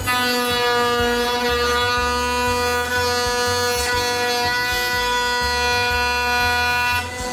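Stepper motors of a 6090 CNC router whining steadily as the gantry is jogged along an axis at constant speed from the manual pendant; the whine stops about seven seconds in.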